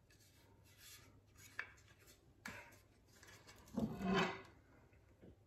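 Handling sounds: the wooden scabbard shifting in the hands with a few light clicks, then about four seconds in a louder knock and scrape as the barong, a steel blade with a wooden handle, is picked up off a wooden table.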